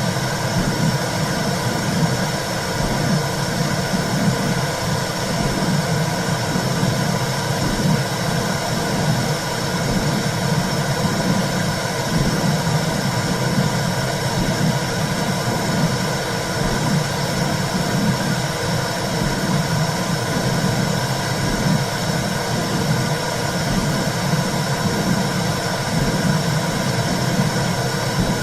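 Womb sound for soothing a baby: a steady low whooshing rumble with a slow pulsing in its low end.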